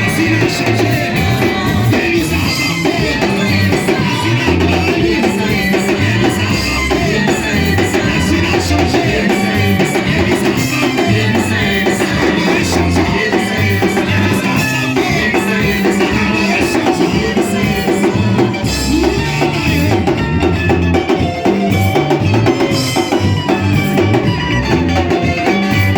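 Church worship band playing a song with a steady beat on drum kit, bass and guitar, with singing.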